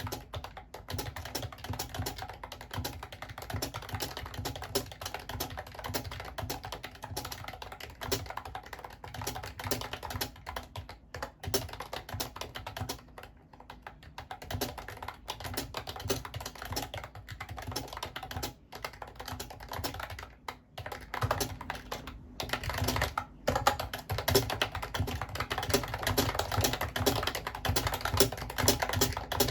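Fast, continuous typing on a Mofii Candy wireless keyboard: a dense run of key clicks with a couple of short pauses, growing louder in the last few seconds.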